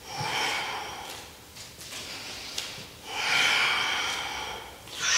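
A man breathing through the nose during a kettlebell warm-up, three long, hissing breaths: one at the start, one about three seconds in and one at the end.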